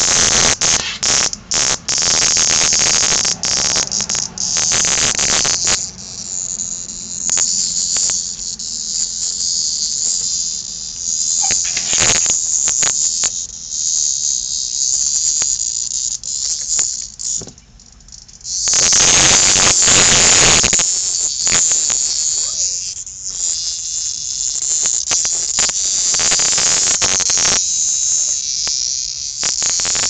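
Cicada buzzing loudly while kittens paw at it: a harsh, high-pitched drone, the distress buzz of a caught cicada. It swells into louder rasping surges at the start and again for about two seconds a little past the middle.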